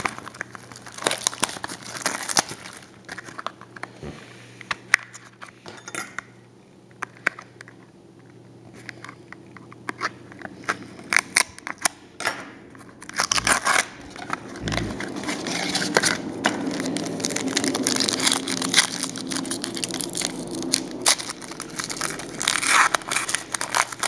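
A trading-card pack wrapper being torn open and crinkled, with the cards inside handled. Scattered crackles and rustles, sparser through the middle and busier in the second half.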